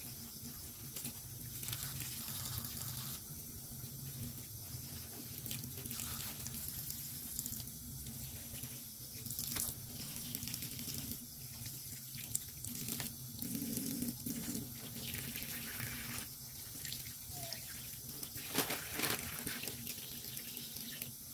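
Tap water running into a sink while fish and shrimp are rinsed under it, with scattered clicks and knocks from handling.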